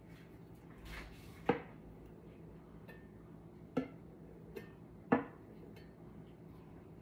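Metal palette knife clinking against paint cups while being loaded: three sharp taps, the first about a second and a half in and the others a second or so apart, with a fainter tap between the last two and a soft scrape just before the first.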